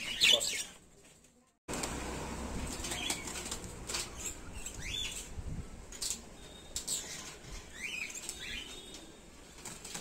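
Pet budgerigars fluttering their wings in a wire cage and giving short rising chirps every few seconds, with a few sharp clicks and rattles of the cage wire. The sound cuts out to silence for about a second near the start.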